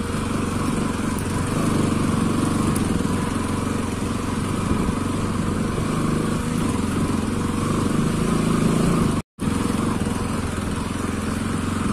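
Bajaj Pulsar NS200 single-cylinder engine running steadily under way. The sound cuts out completely for a moment about nine seconds in.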